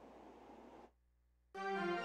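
Faint room tone, a brief drop to dead silence, then the programme's theme music starts abruptly a little past halfway, with sustained keyboard-like chords.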